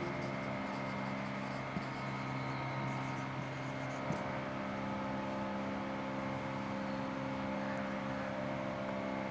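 Felt-tip marker writing on a whiteboard, faint, with a few light taps, over a steady background hum.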